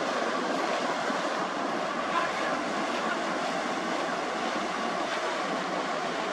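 The MV Coho car ferry passing close by under way: a steady, even rush of engine noise and water washing along its hull.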